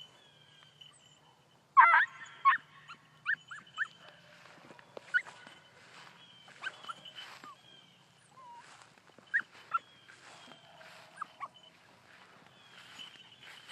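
Beagle puppy giving short, high-pitched yelps again and again, starting about two seconds in: a young hound baying on a rabbit's scent trail.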